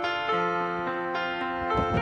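Background music: sustained instrumental notes between sung lines of a looping song.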